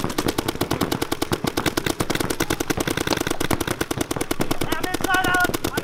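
Paintball markers firing in rapid, continuous volleys, many shots a second overlapping from several guns across the field. A short shouted call cuts in near the end.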